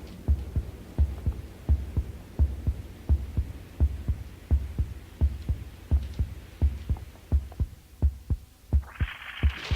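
Heartbeat sound effect: steady, low lub-dub thumps, one beat about every 0.7 seconds. A hiss comes in about nine seconds in.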